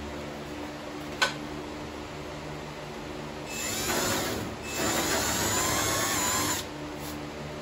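A cordless drill runs in two bursts, about a second and then about two seconds, its bit against the steel trunk lid, with the whine rising in the second burst. A short knock comes about a second in.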